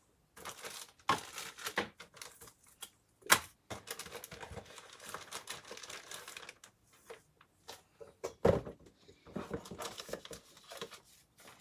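A motherboard box and its packaging being handled and opened: a run of irregular light clicks and knocks with crinkling and rustling. Sharper knocks come about three seconds in and again past eight seconds.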